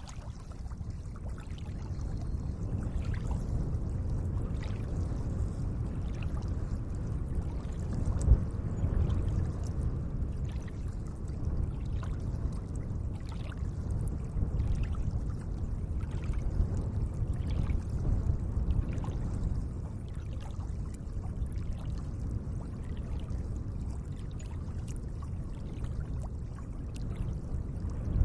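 Gentle lake water moving: a steady low wash with small light splashes and drips scattered through it, one a little louder about eight seconds in.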